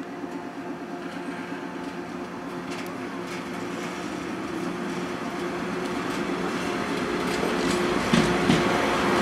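JR 115-series electric train running past along the platform: a steady hum from its MT54 traction motors and wheel noise growing steadily louder as the cars come alongside, with a few sharp clicks of wheels over rail joints toward the end.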